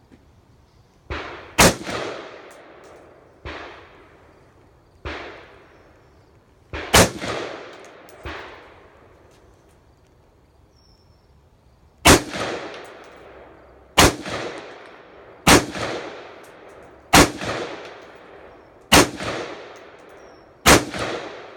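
AR-15 rifle fired in slow single shots: eight loud shots, each with a short ringing tail, most about one and a half to two seconds apart in the second half. Fainter gunshots sound between the early ones.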